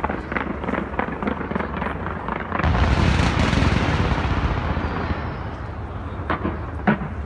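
Fireworks display: many small bursts crackling and popping, swelling about two and a half seconds in into a louder continuous rush of bursts that fades, then a few separate sharp bangs near the end.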